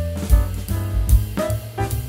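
Background jazz-style music with a drum kit keeping a steady beat and horns carrying the melody.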